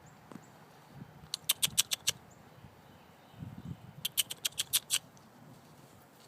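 Horse hooves clattering on hard ground: two quick runs of sharp clicks, about six and then about eight, with a few soft low thuds between them.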